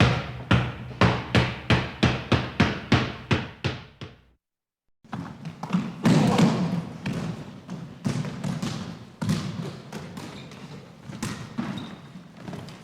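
A basketball dribbled steadily, about three bounces a second, fading out about four seconds in. After a brief silence, a busier stretch of irregular ball bounces and thuds follows.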